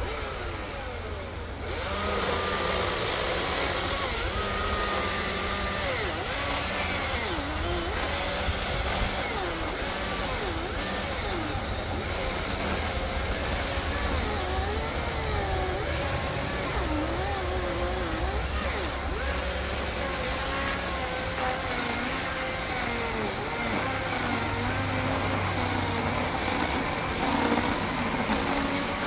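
Husqvarna Power Axe 350i battery chainsaw cutting through a thick log, its electric motor whining under load with the pitch wavering as the bar is worked through the wood. It gets louder about two seconds in as the chain bites into the cut.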